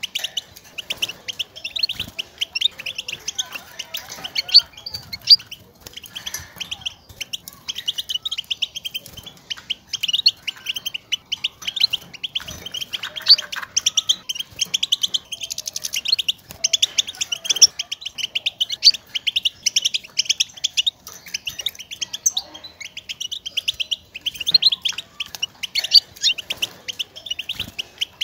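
European goldfinch calling: a fast, continuous chatter of short, high twittering notes. These are the goldfinch's contact calls, used to call to other goldfinches and to prompt a caged male to sing.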